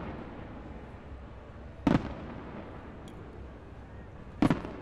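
Aerial fireworks shells bursting with sharp booms: one about two seconds in, then two in quick succession near the end, each trailing off briefly.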